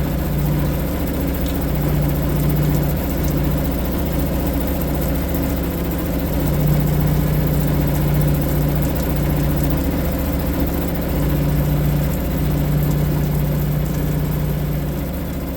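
Suzuki DF2.5 single-cylinder four-stroke outboard motor running steadily at idle, with a slight waver in its note.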